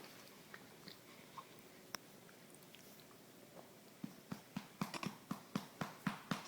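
Hand patting a baby's back to bring up a burp, a steady run of soft pats about four a second that starts about two-thirds of the way in. Before that, only a few faint small clicks.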